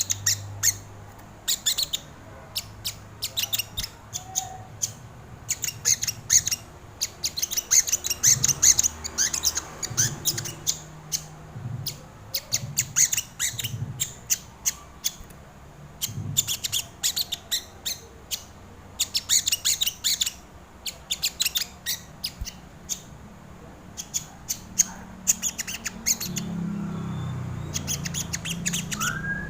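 Crimson sunbird (sogon) calling: bursts of rapid, sharp high chipping notes, repeated every second or two. Near the end a low rumble of traffic comes in under the calls.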